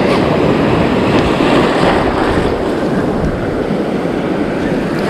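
Surf washing and breaking around the legs of a wading angler, with wind buffeting the microphone: a loud, steady rush of noise.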